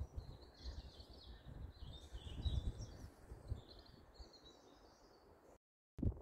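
Birds singing and chirping in woodland, over an irregular low rumble. The sound cuts off to silence shortly before the end.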